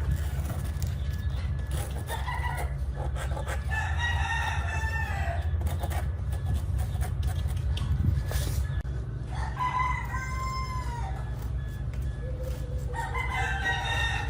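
A rooster crowing four times, each call about a second long and arching in pitch, over a steady low hum.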